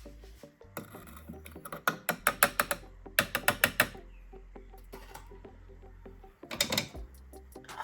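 Rapid mechanical clicking and rattling in two runs, from about one to four seconds in and again briefly near the end, over a low steady hum.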